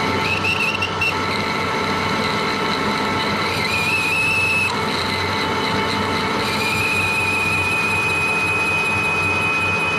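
Pratt & Whitney metal lathe running under power, its gearing whining steadily, while the cutting tool squeals against the spinning workpiece: the squeal comes briefly near the start, again around the middle, and then holds steady through the last few seconds.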